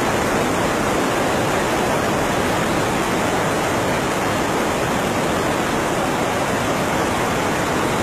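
Muddy floodwater from a flash flood pouring over a rocky ledge: a loud, steady rush of water.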